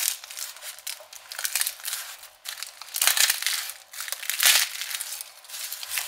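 Dry papery garlic skins crackling and rustling as a garlic bulb is broken apart and its cloves peeled by hand, in uneven bursts, loudest about three seconds in and again about four and a half seconds in.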